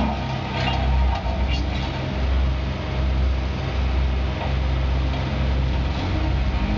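Engine of a heavy construction machine running steadily, with a few short clicks about half a second to a second and a half in.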